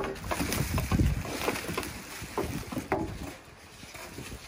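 Thin plastic bag crinkling and rustling as it is pulled off an air fryer, with a few sharp clicks and low handling thuds; it dies down about three seconds in.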